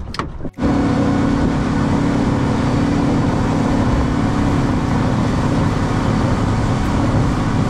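A motor vehicle's engine running steadily at cruising speed, with a constant low hum and a wash of noise, starting abruptly about half a second in.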